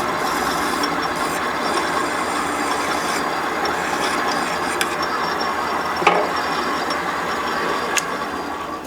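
Metal lathe running steadily while a chamfer is cut on the end of a small turned steel punch; the machine winds down near the end.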